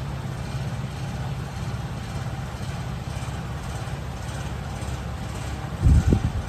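A steady low mechanical hum, with a brief louder low rumble about six seconds in.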